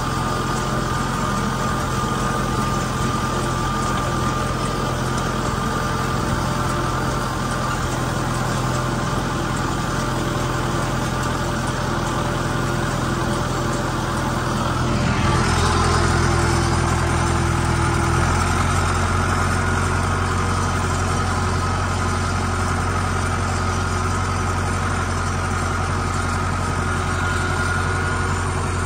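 Farm tractor engine running steadily under load while pulling a side-delivery hay rake, heard close from the seat. About halfway through the sound changes abruptly to a deeper, slightly louder engine note.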